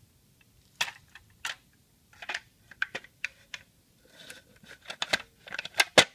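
Irregular sharp clicks and clacks of a distributor cap and housing being worked into place by hand on a small-block Chevy V8, sparse at first and coming thicker and faster in the second half.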